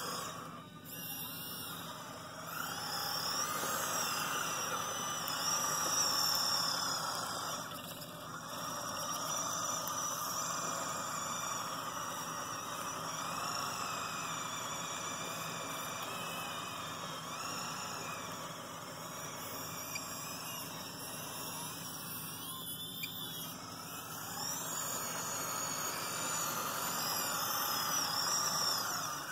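Small electric drive motors and gears of a radio-controlled Cat 963 track loader whining, the pitch rising and falling again and again as it drives and moves its loader arm; the sound cuts off at the very end.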